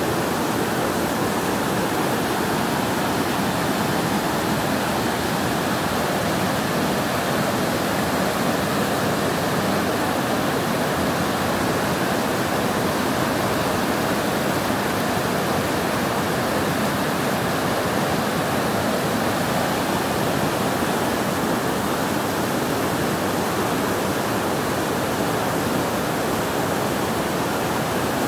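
Floodwater rushing across a street, a steady, unchanging rushing noise.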